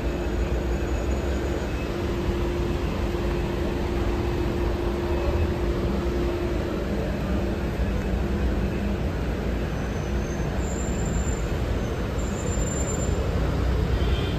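Steady city street traffic noise: a low rumble of vehicle engines, with a steady hum that fades out about halfway through. A couple of brief, faint high-pitched tones sound near the end.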